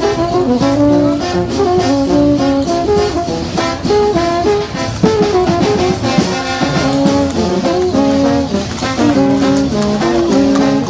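Music led by brass instruments, playing a lively melody over a steady beat.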